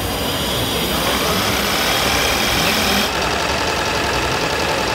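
Live-steam plant of a wooden model boat running on its stand: a steady mechanical running sound under a strong hiss, which changes in tone about three seconds in.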